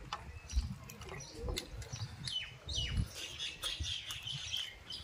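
Close-up eating sounds: wet chewing and lip smacking as a man eats fish and rice with his fingers, with short clicks and low thuds. A few quick high chirps, likely birds, come in about halfway through.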